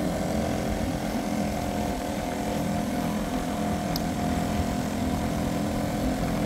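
A small 2 hp Johnson two-stroke outboard motor running at a steady speed, driving the boat along.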